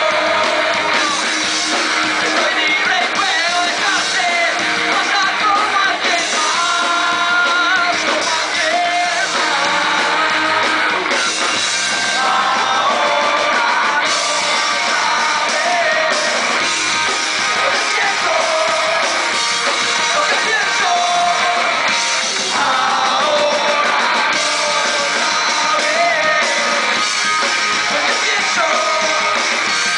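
Live punk rock band playing: electric guitars and drum kit with a singer singing and shouting into the microphone throughout.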